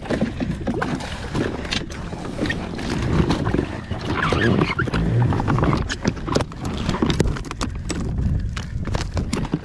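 Irregular knocks and slaps of a small, just-landed mahi-mahi flopping against the jet ski as it is handled, over a steady low rumble.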